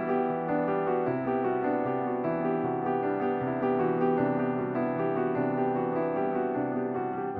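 Background music: gentle piano, notes changing about once a second.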